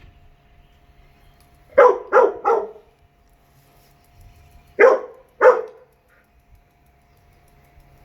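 Dog barking: three quick sharp barks, then two more about three seconds later, in a squabble between dogs over food.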